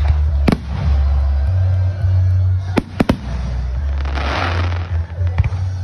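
Aerial firework shells bursting with sharp bangs: two near the start, three in quick succession about three seconds in, and another near the end. About four seconds in there is a spell of crackling as crackling stars go off. Throughout, music plays with a heavy, steady bass.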